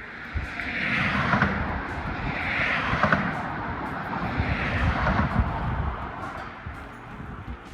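Cars passing fast on a road, three in a row, each a swelling and fading whoosh of tyre and engine noise about two seconds apart.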